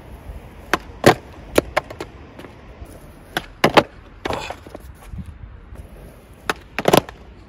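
Wooden skateboard deck of an old-school Dominion board clacking and slapping on concrete during flatground flip tricks: a string of sharp cracks from tail pops and landings, loudest near the middle and near the end, over the low rumble of the wheels rolling.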